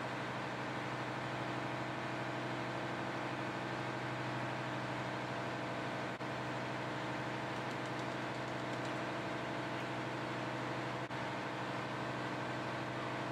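Steady running noise of a ship's engine-room machinery: a constant hum with several held low tones and a hiss over it, broken by two brief dips about six and eleven seconds in.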